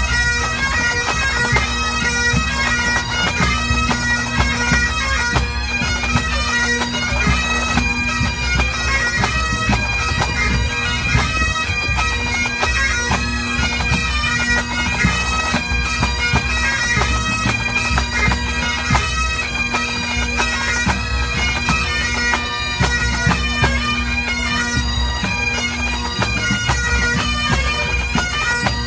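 A full pipe band playing: massed Great Highland bagpipes hold a steady drone under a changing chanter melody, with snare and bass drums beating along.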